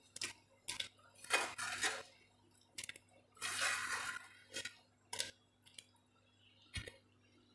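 Spoon scraping and knocking against a plate as fried paneer cubes are pushed off it into the gravy in the pan. It comes as irregular short scrapes and clicks, with one longer scrape just past halfway.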